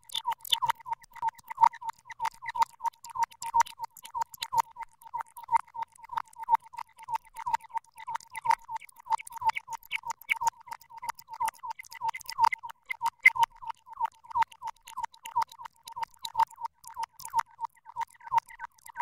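A rapid, uneven run of short ticking clicks, several a second, all at about the same pitch.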